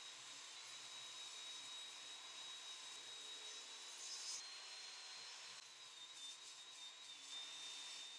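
Table saw trimming a thin strip off the edge of a glued-up hardwood panel, heard faintly: a steady high whine over the hiss of the cut, with a brief brighter burst about four seconds in.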